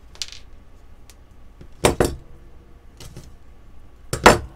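Needle-nose pliers clinking against the metal tube of a disposable e-cigarette while its tip is pried off. A few sharp metallic clicks, with loud double clicks about two seconds in and again near the end.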